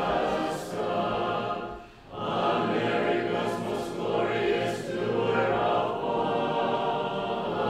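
Church choir chanting an Orthodox liturgical hymn in sustained voices, with a brief breath between phrases about two seconds in.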